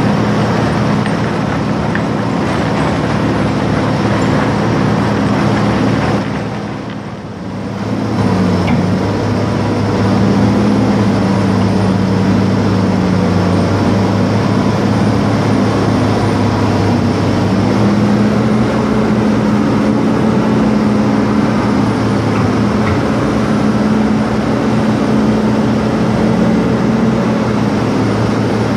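Amphibious excavator's diesel engine running steadily under load, heard from the operator's cab; it dips briefly about six seconds in, then comes back stronger and holds a steady hum.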